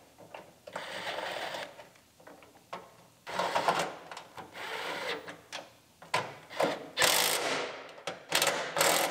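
Cordless impact wrench running in several short bursts, each a second or so long, as it runs bolts into a trunk-lid latch; the later bursts are louder.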